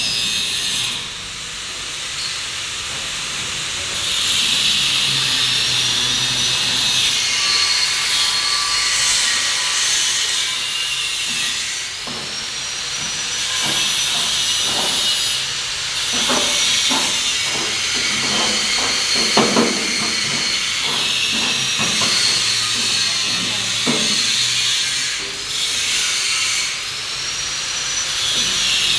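Vibrating concrete-block press machine running with a loud, steady hissing rattle and a low hum, with a few rising-and-falling whines. A run of knocks and clanks comes in the middle, loudest about two-thirds of the way through.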